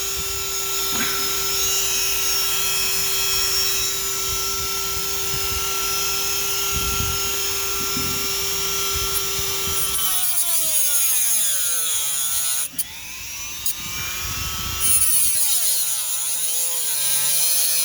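Dremel rotary tool with a cutoff wheel grinding a new screwdriver slot into the head of a stripped steel screw. A steady high whine for about ten seconds, then its pitch repeatedly dips and rises as the wheel bites into the screw and eases off, with two brief breaks, and it stops suddenly at the end.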